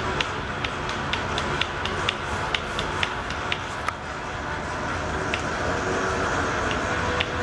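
Rhythmic mechanical clicking, about two clicks a second, from the mechanism raising the tilting plywood test board, over a steady low hum. The clicks pause briefly midway, then resume.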